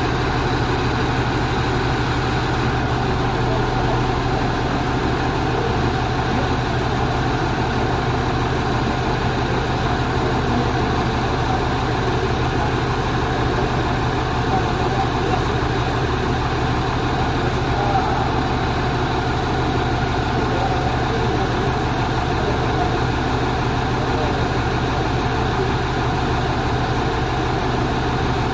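Four-axle truck's engine idling steadily: an even, unchanging low hum with no revving.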